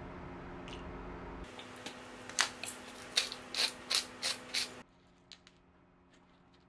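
A hand-held spice grinder being twisted over a dish: a run of about eight crunchy grinding strokes over roughly three seconds, then it stops. Before that, a steady low hum cuts off about a second and a half in.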